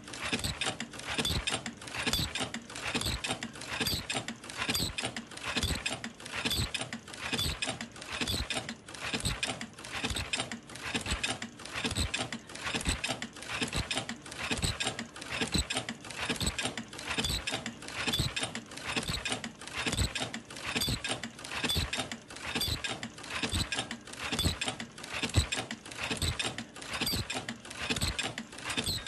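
Senfeng FLK120 face mask making machine running in production: a steady rhythmic mechanical clatter, each cycle a cluster of clicks and knocks, repeating about once a second.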